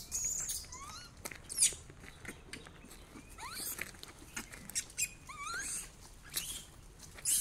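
Monkeys making a scattered series of short, high-pitched squeaks and chirps, some sliding up and some sliding down in pitch, with light scuffing steps on dry dirt.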